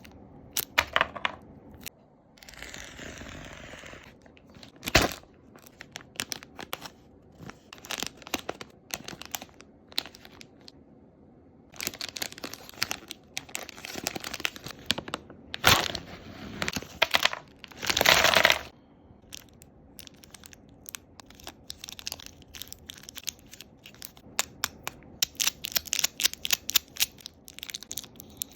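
Close-miked crinkling and tearing of VC-3000 cough drop wrappers, with many sharp clicks and crunches. There is a longer rustle about three seconds in and loud bursts of crinkling around sixteen and eighteen seconds.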